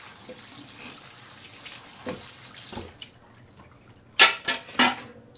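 Cold tap water running into a metal mesh strainer of cooked tortellini in a kitchen sink, rinsing them to cool them, until it stops abruptly about three seconds in. A second later come a few loud clattering knocks, the strainer being handled in the sink.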